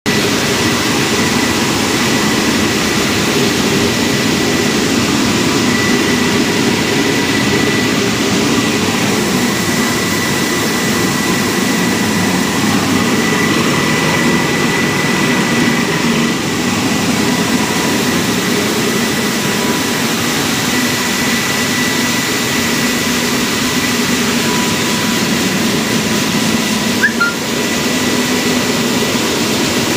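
Rice milling plant machinery running: a loud, steady mechanical din with a faint constant whine over it, and a brief knock near the end.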